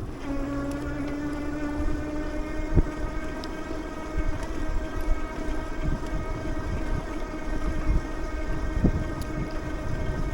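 Motorized bike cruising at a steady speed: its motor gives a steady even whine, over low wind rumble on the microphone, with a couple of brief knocks from bumps.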